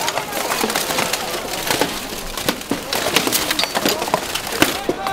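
Rapid, irregular clatter of blows in an armoured buhurt melee: blunted weapons hitting shields, helmets and plate armour, several knocks and clangs a second.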